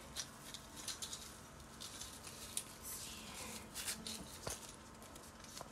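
Thin plastic gift wrapping crinkling and tearing as it is pulled open by hand: faint, irregular crackles, with a few sharper snaps around the middle.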